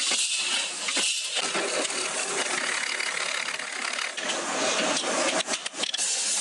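Workshop machine noise of steel being worked: a steady mechanical rattle and clatter from cutting, drilling and sanding, with a few brief breaks near the end.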